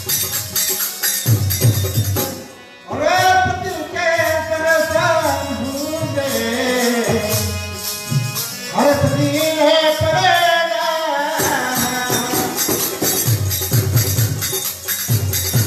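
Hindu devotional bhajan: a man sings a long phrase to harmonium from about three seconds in until about eleven seconds, with a dholak drum and jingling hand cymbals keeping a steady beat. The drum and cymbals drop out briefly just before the voice comes in, then play on alone near the end.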